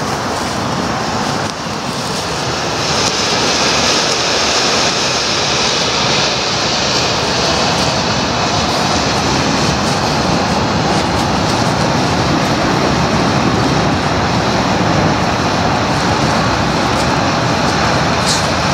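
Blue smoke torch (Blackboxx Fireworks Rauchfackel) hissing steadily as it burns and pours out smoke, the hiss growing a little louder about three seconds in.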